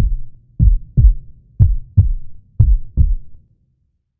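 Heartbeat sound effect: deep paired lub-dub thumps repeating about once a second, stopping about three and a half seconds in.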